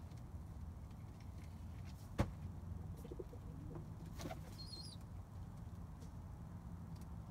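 Domestic pigeons in a loft cooing softly, with one sharp knock about two seconds in and a brief high chirp near the middle, over a steady low background hum.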